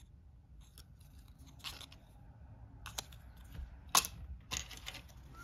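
Cardboard game standees being handled and set down on a board game's board: a few light clicks and short scrapes, the sharpest click about four seconds in.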